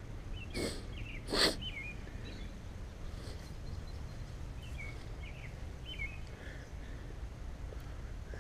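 Small birds chirping in short bursts over a steady low outdoor rumble, with two brief loud knocks about half a second and a second and a half in.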